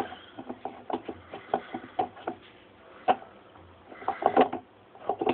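Parts of a Kenmore Oasis top-load washing machine being handled: a ring being set back onto the tub and turned to line up its screw holes, with scattered sharp clicks and knocks and a brief cluster of rattling about four seconds in.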